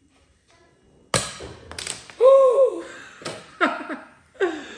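A party cracker going off with a sharp pop about a second in, small prizes clattering and tapping onto the wooden table, then a loud, drawn-out surprised "ooh" and short laughs.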